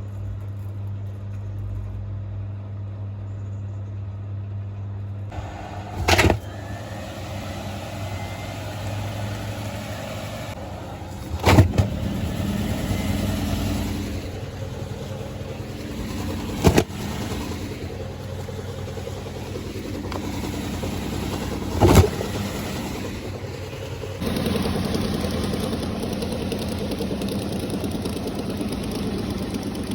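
Washing machine running with towels inside and its door open: a steady motor hum, then a short loud thud about every five seconds, and a louder steady churning from about two thirds of the way in.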